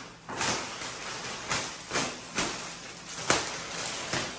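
Clear plastic wrap on a foam mattress crinkling and crackling as it is slit along the edge with a small cutter and pulled loose, in a string of short rustles about every half second.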